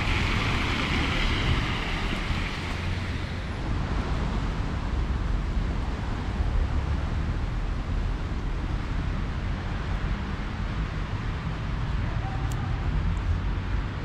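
Outdoor street noise on a wet road: the hiss of car tyres on wet asphalt fades away over the first few seconds, over a steady low wind rumble on the microphone.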